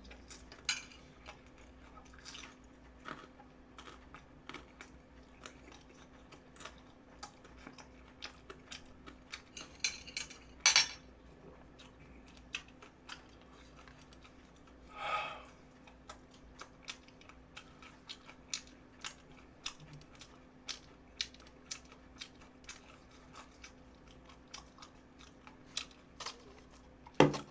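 Mouth sounds of someone eating pan-fried dumplings: chewing with frequent small wet clicks and smacks. There is a sharp knock about eleven seconds in and a short rush of noise a few seconds later.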